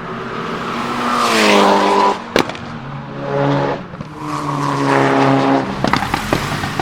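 Mitsubishi Lancer Evo VI's turbocharged 4G63 four-cylinder engine revving hard, its pitch climbing in two pulls. A single loud bang comes between them, and a rapid run of pops and crackles near the end, from the anti-lag misfiring system firing in the exhaust.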